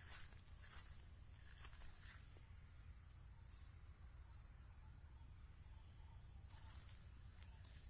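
Steady high-pitched chirring of insects in the field, with a few footsteps and rustles in grass in the first two seconds and again near the end.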